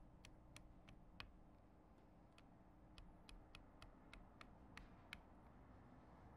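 Faint, sharp little metallic clicks, about a dozen at uneven spacing, stopping a little after five seconds in: the parts of a historical firearm, such as its sight, being worked by hand.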